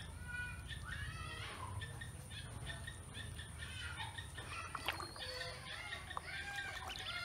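A group of ducklings peeping, many short high calls overlapping one another, over a steady low hum. A sharp click about five seconds in.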